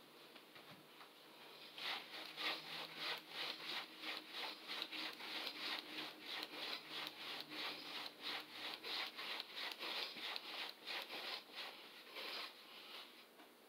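Hard, rhythmic breathing during exercise, in short strokes about three a second, starting about two seconds in and stopping near the end.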